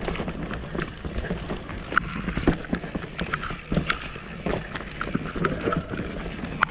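Mountain bike riding down a dirt forest singletrack: tyres rolling over the earth with frequent clattering knocks from the bike jolting over bumps and roots, and wind on the microphone.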